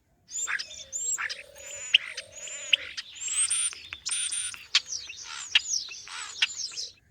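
Birds chirping and singing: a dense run of quick, high whistled notes that slide up and down, with a low steady hum coming and going underneath.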